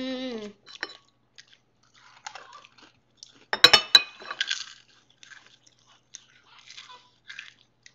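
Pringles potato crisps being bitten and chewed: scattered crackling, with one loud crunch of several sharp cracks about three and a half seconds in.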